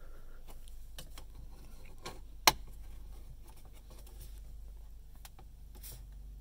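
Plastic ProClip phone mount being pressed into the BMW X3's dashboard trim by hand: faint scattered clicks and rubbing of plastic, with one sharp snap about two and a half seconds in as the clip seats in the dash.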